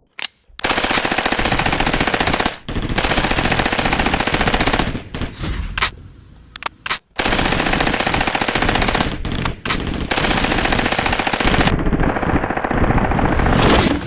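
Rapid automatic gunfire in long bursts, several seconds each, separated by short pauses and a few single shots.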